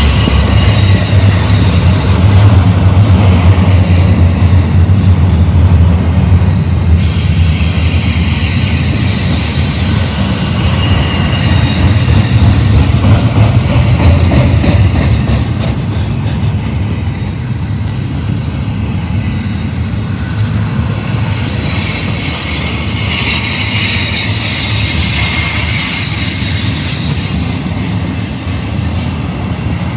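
Double-stack intermodal freight cars rolling past close by: a heavy rumble and clatter of steel wheels on the rails, with bouts of high squeal from the wheels on the curve. The rumble eases somewhat about halfway through.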